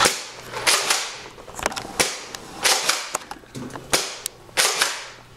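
Nerf Deploy CS-6 foam-dart blaster being primed and fired again and again: a string of sharp puffs and plastic clacks, about one shot a second.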